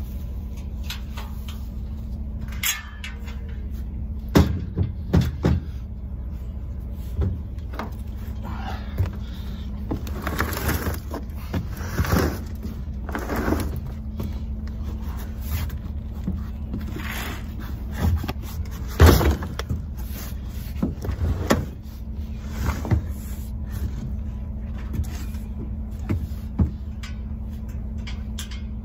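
A full 300-pound plastic feed barrel being shifted and tipped onto its side in a pickup truck bed: scattered knocks and scrapes of the barrel against the bed, the loudest about two-thirds of the way through, over a steady low hum.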